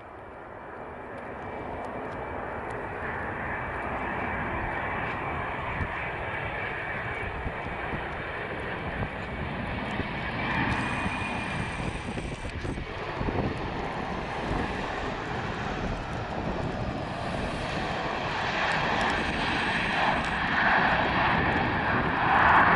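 Boeing 737-300's CFM56-3 turbofan engines on approach and landing: a steady jet rumble with a faint high whine, growing louder as the airliner comes in low and touches down, and loudest near the end.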